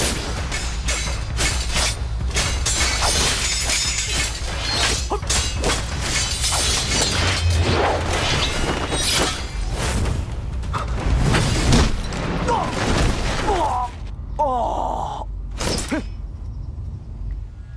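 Dubbed sword-fight sound effects: a rapid, dense flurry of blade clashes, impacts and whooshes, thinning out into a few separate hits after about fourteen seconds.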